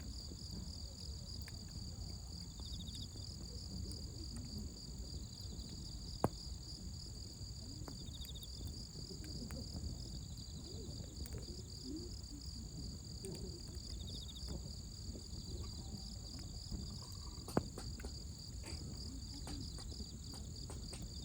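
Crickets and other insects trilling in a steady high chorus, with faint pulsed chirps now and then. Over a low rumble, the campfire gives two sharp pops, about six seconds in and again near the end.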